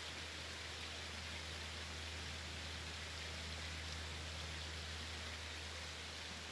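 Steady, even background hiss with a low hum underneath and no distinct events: forest ambience.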